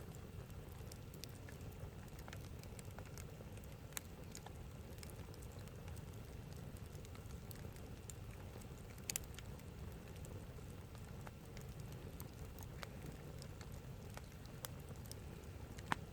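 Wood campfire crackling: scattered sharp pops over a faint, steady low rumble. The loudest is a quick double pop about nine seconds in.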